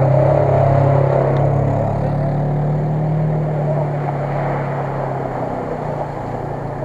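Off-road SUV engines running under load as the vehicles drive through shallow water and mud, with the churning of water over a steady engine drone. It is loudest at the start as one passes close by, then gradually fades as a vehicle pulls away.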